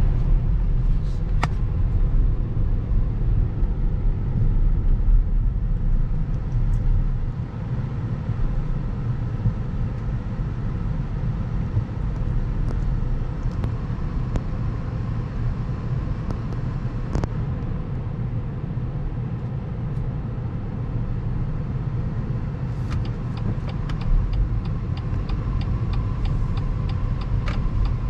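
Car cabin noise while driving: a steady low rumble of engine and tyres on the road, a little louder for the first several seconds. Near the end comes a quick, even run of ticks, about four a second.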